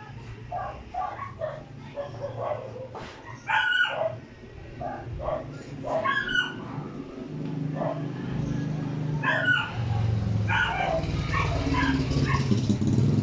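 A dog barking and yipping repeatedly in short bursts, with a low steady hum growing louder beneath it from about halfway through.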